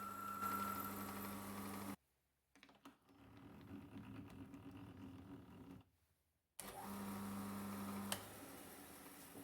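Small workshop machine motor running with a steady low hum, heard in short edited pieces. It cuts off abruptly about two seconds in, and a quieter stretch with light clicks follows. The hum returns briefly after another gap, with one sharp click near the end.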